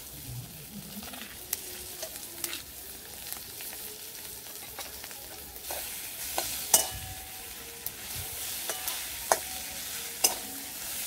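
Ginger, garlic and chilli paste frying with onion and tomato in mustard oil in a metal karahi, sizzling steadily while a metal spatula stirs it, scraping and clinking sharply against the pan every second or so.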